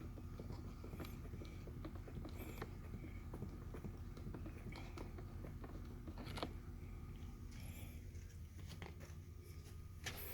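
Faint irregular small clicks and scraping as a plastic door lock pin is unscrewed by hand from its threaded rod, with a few sharper ticks.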